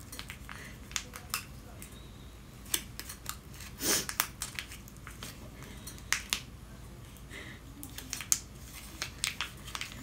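Scattered light clicks and plastic-bag crinkling from small things being handled.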